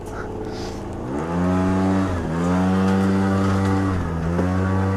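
CPI Aragon GP 50 scooter's 50cc two-stroke engine revving up about a second in and holding high, steady revs as it is ridden, dipping briefly twice when the throttle eases, near two and four seconds in.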